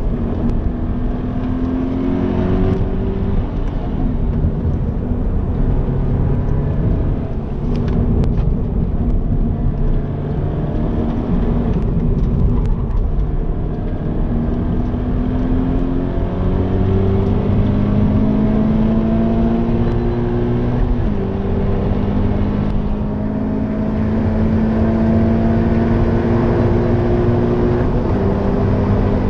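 Stock Toyota GT86's 2.0-litre FA20 flat-four, heard from inside the cabin, accelerating hard on track. Its pitch climbs and then drops back at each upshift, several times, over a constant rumble of road and tyre noise.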